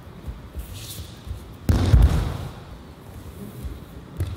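A body hitting the tatami mats in a breakfall during an aikido throw: one loud thud about two seconds in, with softer thumps of feet on the mat before and after it.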